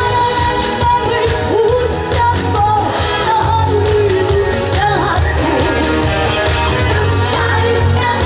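Female trot singer singing live over an amplified band accompaniment with a steady beat.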